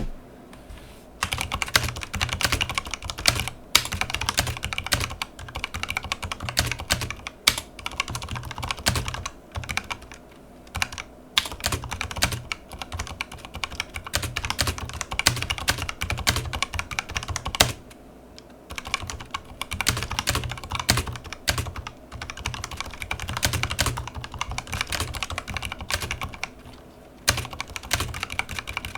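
Fast typing on a Razer mechanical keyboard fitted with Razer Phantom keycaps and new stabilizers: a continuous run of key clacks, broken by a few brief pauses.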